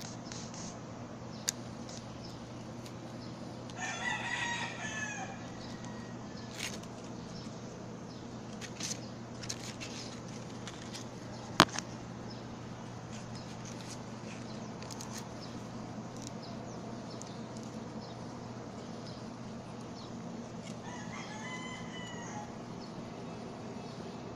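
A rooster crowing twice, about four seconds in and again near the end, over a steady low background hum, with a single sharp click near the middle.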